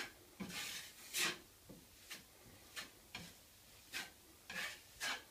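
Metal drywall knife scraping across wet joint compound on drywall in about ten short strokes, some quick and some drawn out, feathering the mud smooth over a taped patch.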